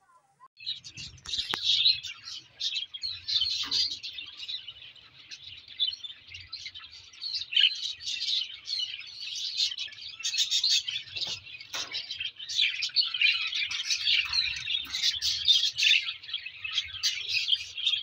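Several lovebirds chattering in a dense run of rapid, high-pitched chirps that starts about half a second in and goes on without a break.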